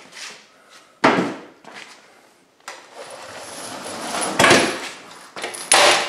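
Metal scraping and knocking as the popup's Goshen lift mechanism, its spring tubes and cable, is pulled and slid out of the frame in several separate tugs: short scrapes about a second in and near the middle, a longer scrape that builds and then falls away, and two more near the end.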